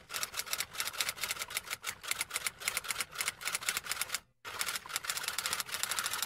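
Typewriter typing sound effect: a rapid run of keystroke clicks, with a short break just past four seconds in.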